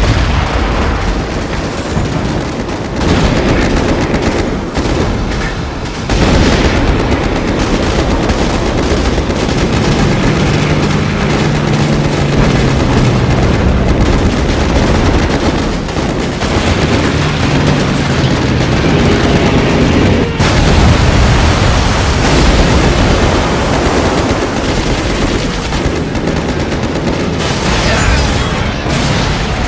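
Dense, continuous anti-aircraft gunfire from warships, rapid shots overlapping with the bursts of flak shells, as in a film battle soundtrack.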